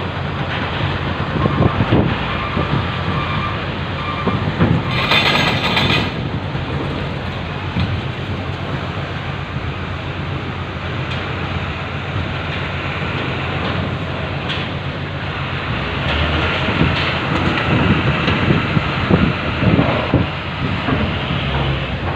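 Steady low rumble of a ferry's engines, with wind and water noise over it and a brief louder burst of noise about five seconds in.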